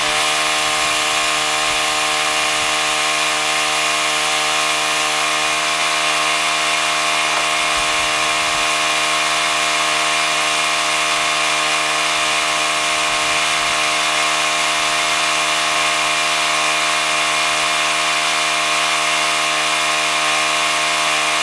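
A machine running steadily at constant speed: an even, unchanging hum with a whiny edge.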